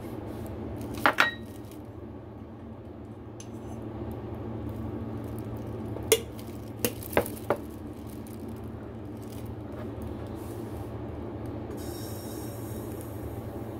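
Ceramic bowls and dishes clinking as they are handled and set down: a double clink about a second in, another near the middle, then three quick ones. Near the end a kitchen tap starts running.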